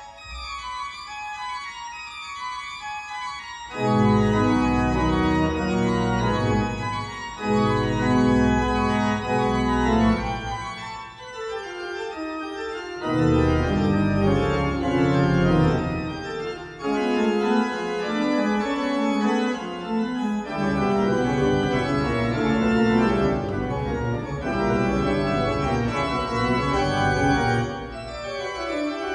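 Pipe organ playing. A quieter high passage comes first, then about four seconds in the full organ enters loud with heavy pedal bass, which drops out and returns several times.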